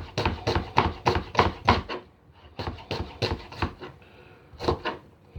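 Kitchen knife slicing through an onion, the blade tapping the chopping board in quick repeated strokes, several a second, with a short pause about two seconds in before the slicing resumes.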